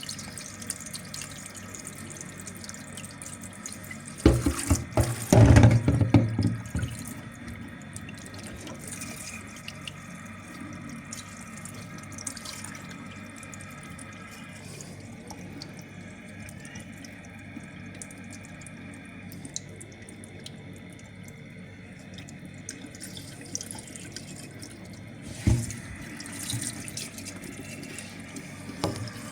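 Tap water running into a BMW E36 power steering reservoir and pouring out through its built-in filter as the filter is flushed clean, now flowing freely. Louder bursts about four to seven seconds in and briefly again near the end.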